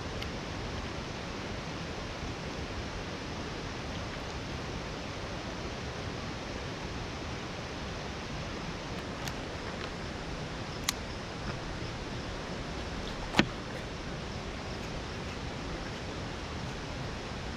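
Steady rushing noise, with two sharp clicks about eleven and thirteen and a half seconds in; the second click is the louder.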